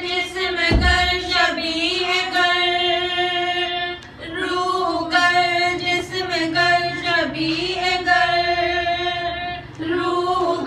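A woman's voice singing an unaccompanied Urdu devotional hymn (hamd), with long held notes and short pauses for breath twice. There is a brief low thump about a second in.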